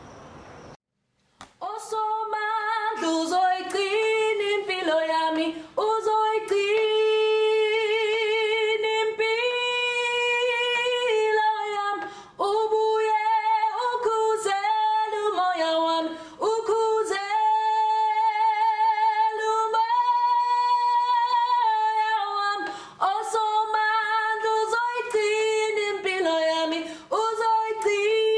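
A woman singing solo a cappella: a slow melody of long held notes with a clear vibrato, starting about a second and a half in.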